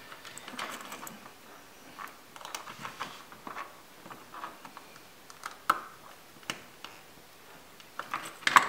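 Light clicks, taps and rustles of hands handling wires and a small circuit board while a loose wire is refitted into a screw terminal, with a short run of sharper clicks near the end.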